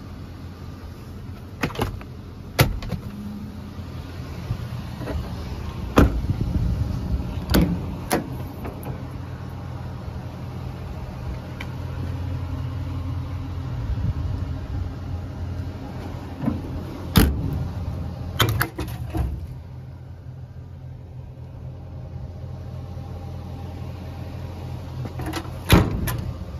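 Metal compartment doors and latches on a Reading utility truck body clicking and clunking open and shut about nine times, over a steady low hum that fades out about two-thirds of the way through.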